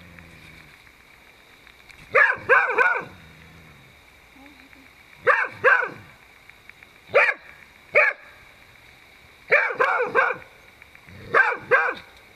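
Beagle barking repeatedly at a Dhaman rat snake it is facing down: about a dozen sharp barks in bursts of one to three, with pauses of a second or two between the bursts.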